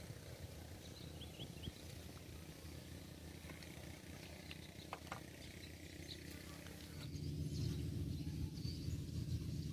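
Outdoor ambience: a low rumble of wind on the microphone that gets louder about seven seconds in, with faint high chirps of small birds or insects and a single click about five seconds in.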